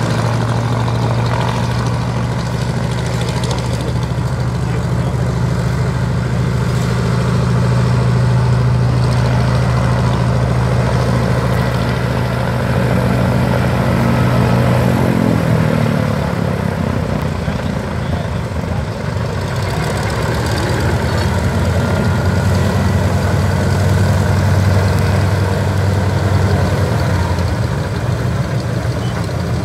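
Twin Pratt & Whitney R-1830 radial engines of a PBY-5A Catalina flying boat running at low power while it taxis, a steady deep drone. About halfway through the pitch slides down as the engines are throttled back, and later the drone swells again.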